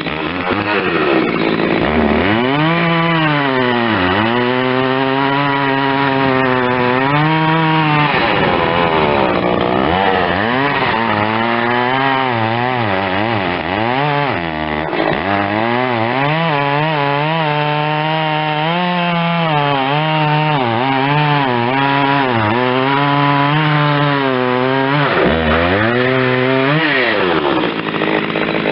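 A Husqvarna 61 two-stroke chainsaw (61cc) at high revs, cutting through wood. Its engine note repeatedly drops as it bogs under load and climbs back, and falls away near the end.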